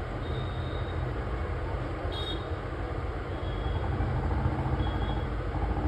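Steady low rumble, with a short click about two seconds in.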